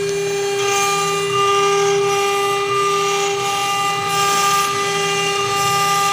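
CNC router spindle running with a steady whine while its cutter engraves a brass plate, with a hiss of cutting that swells and fades every second or so.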